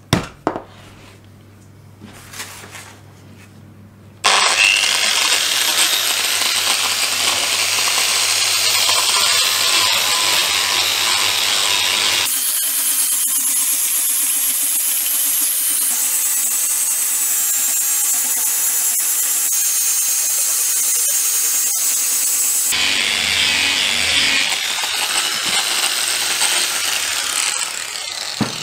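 An electric angle grinder fitted with a hook-and-loop sanding disc, running and sanding along an axe's epoxy handle: a loud, steady grinding hiss with a faint motor whine, starting about four seconds in after a sharp click near the start.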